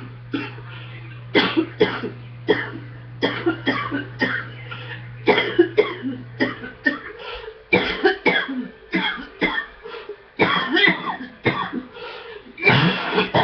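A person with a chest cold coughing from the chest: many short, sharp coughs in quick clusters, one fit after another.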